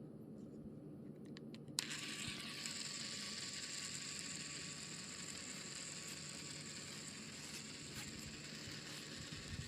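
Small DC toy motor of a homemade matchbox car switched on with a click, then running with a steady high whirr.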